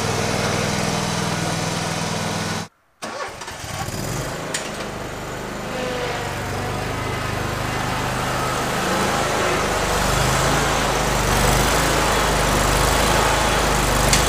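A John Deere X304 lawn tractor's engine idling. After a cut, a John Deere Z930M zero-turn mower's engine runs as the mower drives in, growing louder toward the end.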